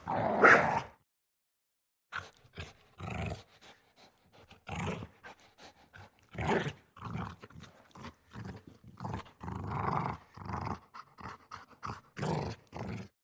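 A dog fight ending in the first second, then, after a brief pause, a single dog growling in a long string of short, broken growls with small gaps between them.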